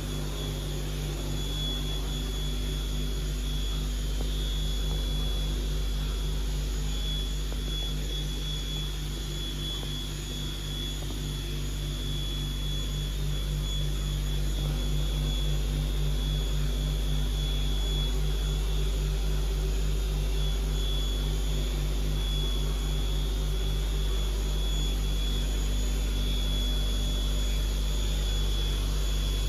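Star SB-20R CNC lathe running: a steady machine hum with a constant high whine, a little louder from about halfway.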